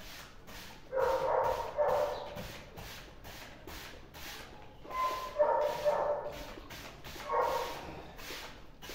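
A dog whining and yipping in several short bouts, over the steady, regular scraping strokes of a broom sweeping the floor, about two to three strokes a second.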